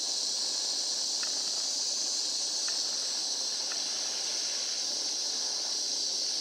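Steady hiss of a small gas torch flame burning while heating solder on thin tin sheet metal, with a few faint ticks.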